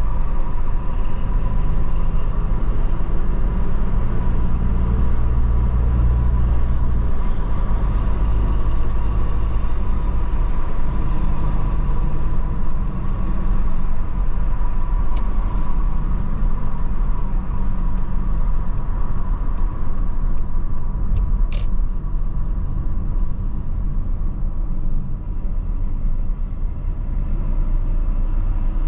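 Car driving on a main road, heard from inside the cabin: steady engine and tyre rumble with a faint constant whine. A heavier low engine drone in the first several seconds comes from a flatbed truck running alongside, and there is one brief click about three quarters of the way through.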